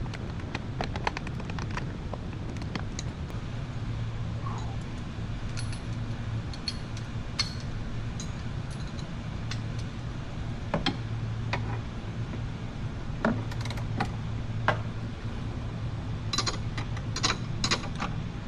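Hand tools working the bottom shock-mounting bolt: scattered metallic clicks and clinks, with a quicker run of clicks near the end, over a steady low hum.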